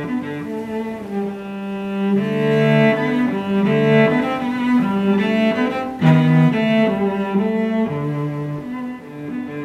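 Background music on bowed strings with a low cello-like line, playing held notes that change every second or so.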